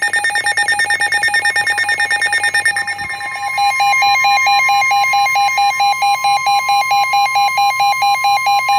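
NOAA weather radio alerting to a new severe thunderstorm warning. A rapid electronic alarm beep comes first. From about three and a half seconds in, the steady 1050 Hz NWR warning alarm tone joins, with a slower pulsing beep of about four or five a second over it.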